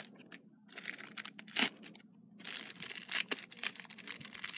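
Clear plastic wrap crinkling and tearing as it is pulled off a tripod's legs. It comes in two stretches of crackling with a brief pause between, with one sharp crackle about a second and a half in.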